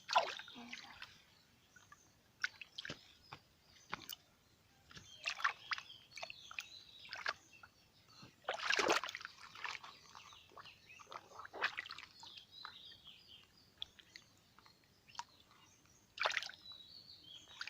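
A hand sloshing and splashing in shallow pond water, in irregular bursts, loudest about nine seconds in.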